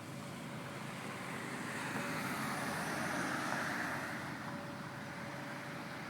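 Road traffic: a passing vehicle whose noise swells to a peak midway and fades again, over a faint, steady, even tone.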